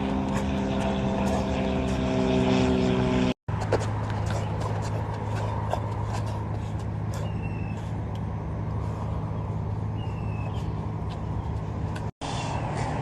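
Steady engine hum of nearby road traffic. In the first three seconds it carries a cluster of steady pitched tones, like an idling truck or bus; after a brief dropout it goes on as a lower steady hum. Two faint short high chirps come through in the middle.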